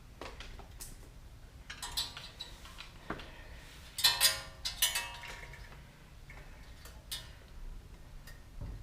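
Metal hand tools and suspension hardware clicking and clinking, as a 4Runner's front sway bar end link is taken off. About four seconds in come a few louder ringing metal clanks.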